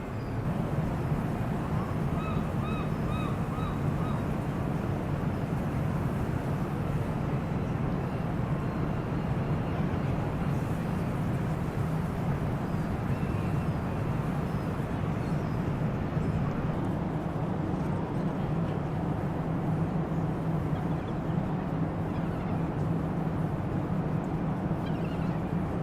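Steady low rumble with a hum, like a running motor, throughout. A few short bird calls sound about two to three seconds in.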